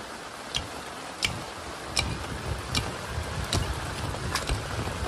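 Heavy rain falling steadily, with a sharp tap about every three-quarters of a second.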